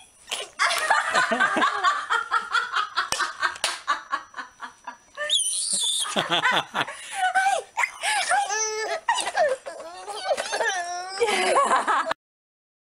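Baby laughing in repeated bursts of giggles and belly laughs, stopping abruptly near the end.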